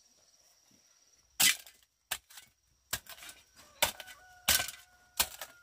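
A run of sharp wooden cracks and knocks, about seven, irregularly spaced and starting about a second and a half in, the first the loudest: wood or bamboo being chopped or snapped. Before them a faint steady high insect buzz.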